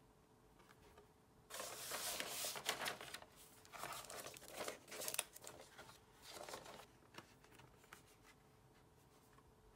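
Packaging being torn open and crinkled by hand in three bursts of rustling, starting about a second and a half in, followed by a few light clicks.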